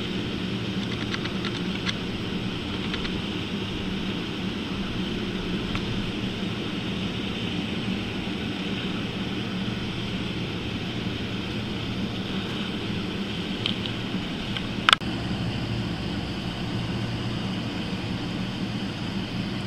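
Steady low hum and hiss of background noise, with a single sharp click about fifteen seconds in.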